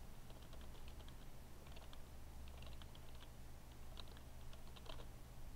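Computer keyboard typing in short, irregular bursts of keystrokes, faint, over a steady low hum.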